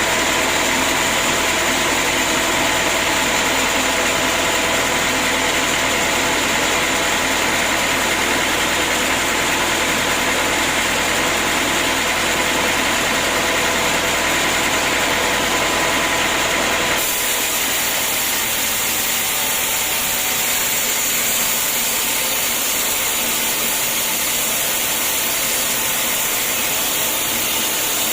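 Sawmill machinery running steadily, a loud hum with a high hiss. About two-thirds of the way through, the sound changes abruptly to a thinner, hissier noise with less low hum.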